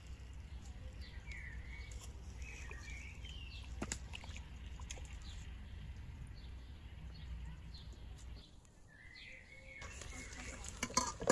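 Wild birds chirping and singing in short curved calls over a steady low rumble. Near the end come a few sharp clicks.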